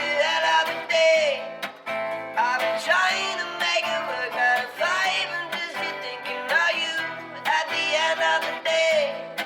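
Music: plucked acoustic guitar playing a run of notes, with no bass.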